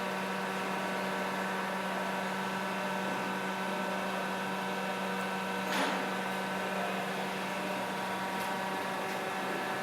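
2D CNC wire bending machine running with a steady hum, one sharp knock a little past halfway.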